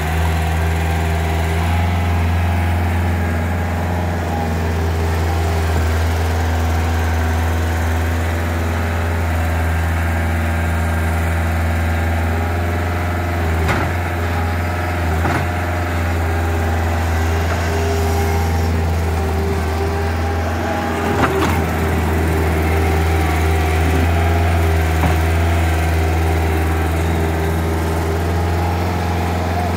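Bobcat S450 skid-steer loader's diesel engine running steadily with a deep hum while the loader works. A few short knocks and rattles come midway as a bucket load of sand is tipped into a truck.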